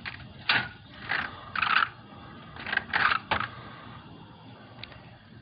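A quick run of about six short scraping and rustling noises in the first three seconds or so, then only a faint steady hiss.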